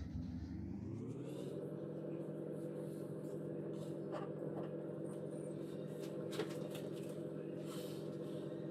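Old electric sewing machine running as it stitches, its motor speeding up about a second in and then holding a steady hum, with a few light clicks from the needle and fabric.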